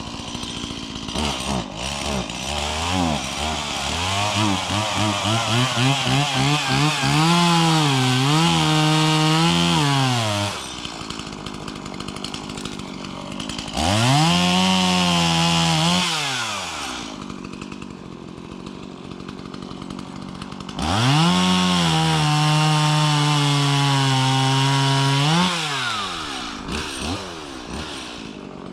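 Chainsaw revving and cutting into a fallen tree. The engine blips up and down several times, then settles at idle between long full-throttle cuts, and winds up again near the end.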